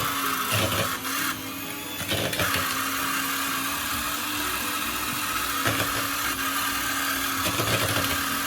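Electric mixer running steadily, beating butter with white and brown sugar to cream them; the whirr eases briefly a little over a second in, then picks up again.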